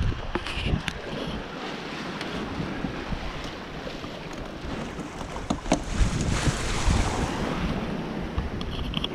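Wind buffeting the microphone over water washing along a sailing yacht under way downwind, with a few short knocks and a louder rush of wash about six seconds in.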